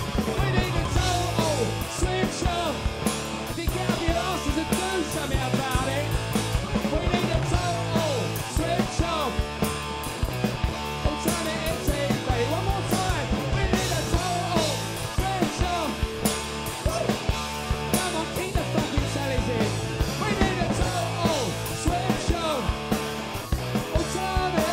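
Punk rock band playing live, with electric guitar, bass guitar and drums, at a steady, driving beat.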